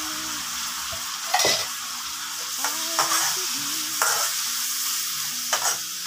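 Wet spice paste of onion, garlic and chilli sizzling in a wok while a metal spatula stirs it, with about four sharper scrapes of the spatula against the pan.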